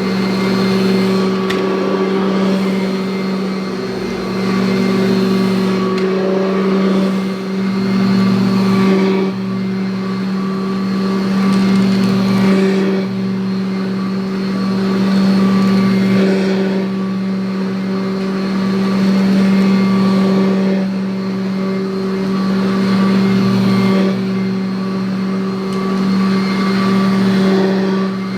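1984 Kirby Heritage upright vacuum cleaner running with a steady motor hum, its loudness swelling and dipping every three to four seconds as it is pushed back and forth.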